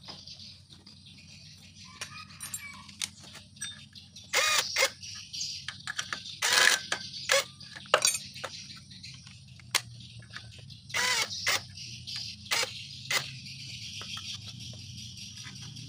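Metal tools and clutch parts clinking and knocking against a motorcycle's clutch assembly, a run of sharp clinks, some ringing briefly, about four to eight seconds in and again around eleven to thirteen seconds.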